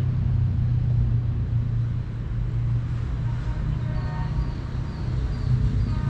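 City road traffic: a steady low engine hum and the noise of passing vehicles.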